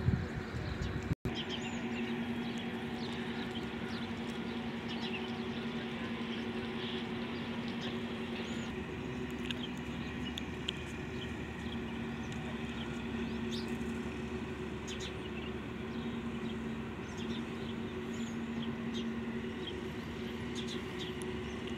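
A steady mechanical hum from a running motor, with birds chirping now and then. A brief low thump right at the start.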